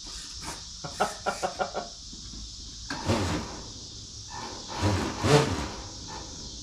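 A man laughing in short pulsed bursts, then two louder, longer sounds about three and five seconds in, over a steady hiss.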